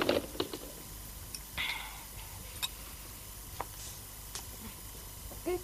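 Quiet room with a few faint, scattered clicks, a brief rustle about one and a half seconds in, and a short faint voice-like sound near the end.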